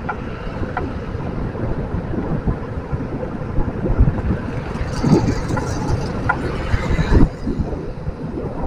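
Wind buffeting the microphone of a camera on a moving bicycle, a steady rumble mixed with street traffic. A louder, brighter rush of passing traffic rises about five seconds in and drops away sharply just after seven seconds.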